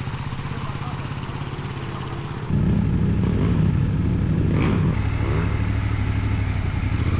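Kawasaki KLX300 dual-sport motorcycle's single-cylinder engine running steadily as the bike is ridden, stepping up in loudness about two and a half seconds in.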